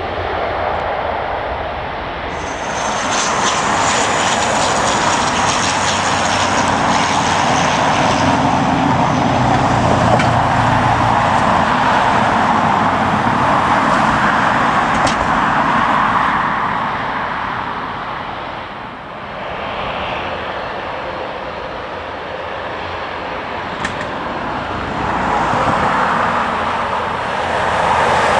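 Jet airliner passing close by, a loud rushing engine noise with a high whine in its first seconds. It eases after about sixteen seconds and swells again near the end.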